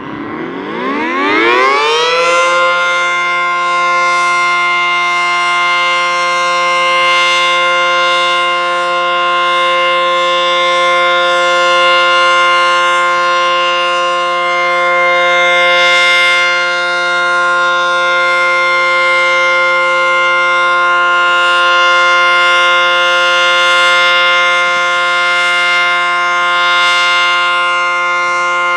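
ACA Banshee 115 outdoor warning siren winding up on a test: its pitch rises for about two seconds, then it holds one loud, steady tone.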